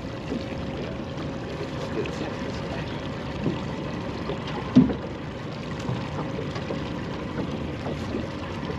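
Water sloshing and lapping against the hull of a small drifting boat, with one sharp knock about five seconds in and a few fainter knocks.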